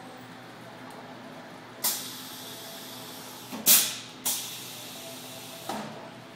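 Pneumatic cylinders on an automated storage-rack robot's gripper firing: four sharp hisses of compressed air, each fading over a second or so, the second the loudest.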